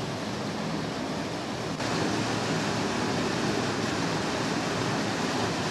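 Water of a small waterfall rushing down a narrow rock gorge: a steady, even rush that gets louder about two seconds in.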